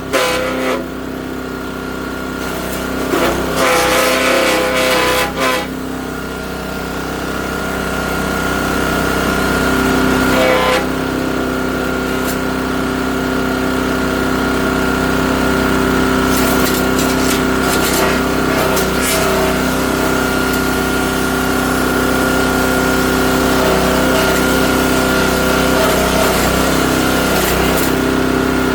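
Great Circle USA 3-inch chipper shredder with a 7-horsepower single-cylinder AlphaWorks gas engine running steadily at speed. There are bursts of crackling as branches are fed into the cutter, and the engine note shifts under the load about ten seconds in.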